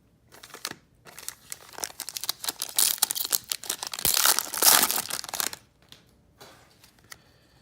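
Foil wrapper of a trading-card pack being torn open and crinkled, a dense crackling for about five seconds that is loudest near the end before it stops.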